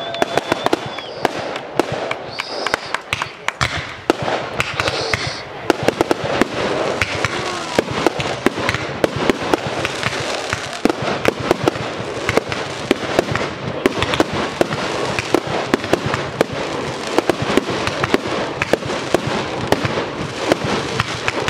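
Fireworks display: aerial shells bursting in a dense, rapid run of pops, bangs and crackling.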